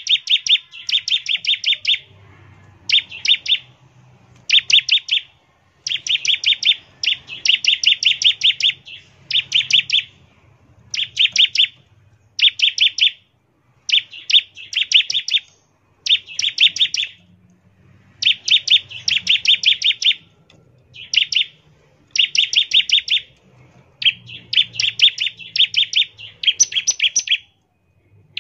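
Bar-winged prinia (ciblek) singing in its rapid 'ngebren' style: repeated bursts of fast, sharp, high notes, each burst about half a second to a second long, separated by short pauses.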